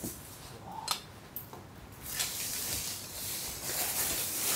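Plastic wrapping rustling as it is pulled off a newly delivered wooden table, with a few light clicks about a second in and a longer stretch of rustling from about two seconds in.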